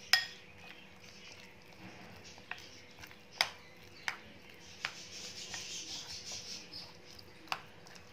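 A spoon stirring thick, wet gram-flour batter in a glass bowl, with a soft squelching hiss and a few sharp clinks as the spoon knocks against the glass now and then.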